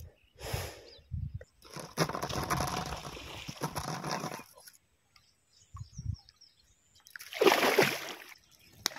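Water splashing and sloshing in a stream, in two bouts: a longer one about two seconds in, and a shorter, louder one about seven seconds in.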